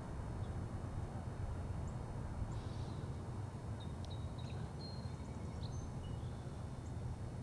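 Steady low rumble of heavy trucks' diesel engines idling or crawling, with a few faint bird chirps and short whistles in the middle.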